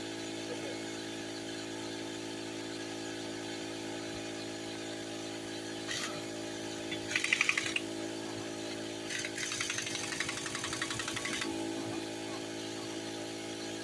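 Impact wrench driving in the brake caliper bolts in two bursts of rapid hammering: a short one about seven seconds in, then a longer one of about two seconds. A steady hum runs underneath.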